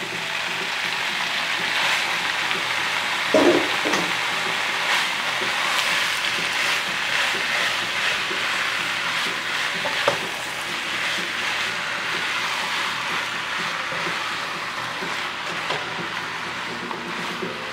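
Thinly sliced marinated beef sizzling and frying in a hot oiled pan, stirred with a silicone spatula. Two short knocks stand out, one about three seconds in and one near ten seconds.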